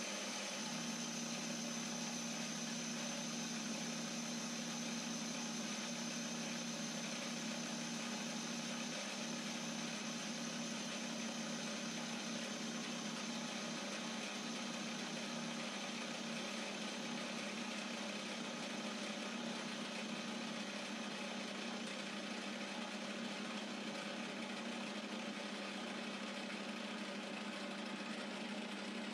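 Metal lathe running steadily, its spindle turning a large round collet-chuck blank: an even motor and gearbox hum with a faint high whine.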